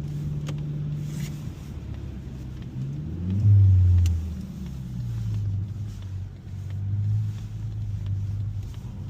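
Mazda 3 Turbo's 2.5-litre turbocharged four-cylinder engine running while driving, with a short rise in revs about three seconds in and its loudest stretch just after, then settling to a steady lower drone.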